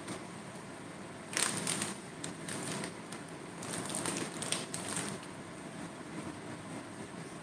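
Thick three-cup chicken sauce with rock sugar bubbling and popping in a stainless pan as it reduces and caramelizes. The pops come in two spells, one about a second and a half in and one around four seconds in.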